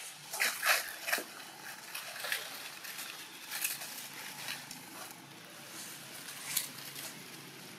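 Baby macaques scuffling and moving about in dry fallen leaves: several short crackling rustles, the busiest in the first second or so, with single ones later.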